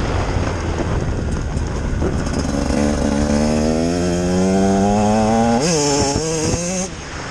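Husqvarna TE 150's single-cylinder two-stroke engine accelerating, its pitch rising steadily for a couple of seconds, then wavering and dropping as the throttle is backed off near the end.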